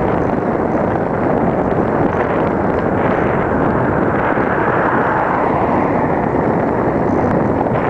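Wind buffeting the microphone of a bicycle-mounted camera while riding: a loud, steady rushing noise.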